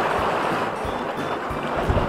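Steady rush of a mountain stream, with low wind buffeting on the microphone.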